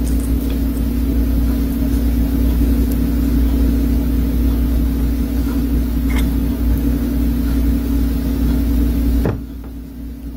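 Steady machine hum with a low rumble, like an appliance fan or motor running, with a few faint clicks over it. The hum drops off suddenly about nine seconds in.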